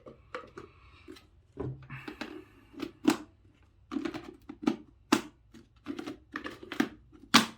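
Handling of a cordless vacuum's plastic dust container and filter: irregular clicks and knocks of plastic parts, with short bits of rustling near the start.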